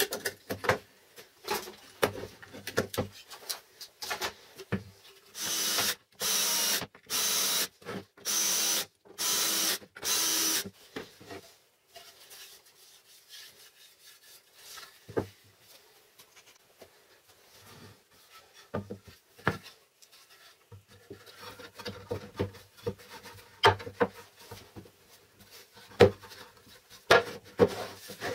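Six loud rasping strokes of something rubbing on wood, about a second apart, between clicks and knocks of plywood jig parts and bar clamps being handled on a bench.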